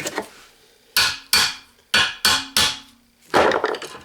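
Six hard metal strikes, like hammer blows, coming in quick runs with short gaps, some leaving a brief low ring.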